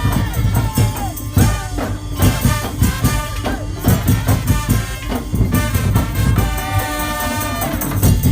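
Madurese ul daul (tongtong) ensemble playing, with dense drums and percussion under a bending melody line that holds one long note near the end.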